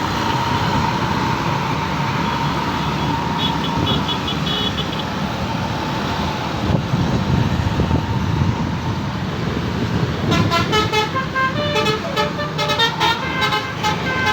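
Low rumble of bus engines and traffic, with a short faint run of high horn notes about four seconds in. From about ten seconds in, a bus's telolet horn, a multi-tone musical air horn, plays a quick tune of stepping notes.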